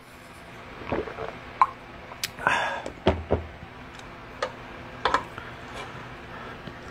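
A man drinking a glass of water and eating a pot of samgyetang: scattered light clicks and knocks of glass and spoon, with a short breathy exhale about two and a half seconds in.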